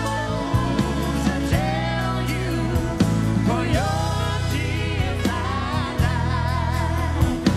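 Live gospel song: a woman singing lead, her held notes wavering with vibrato, over piano and organ accompaniment with sustained low chords.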